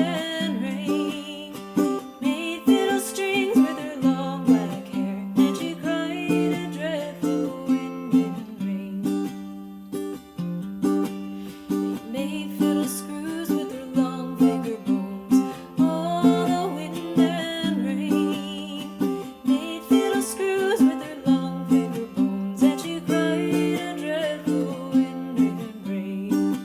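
Folk music: a plucked string instrument played in a steady rhythm, with a wavering melody line over it.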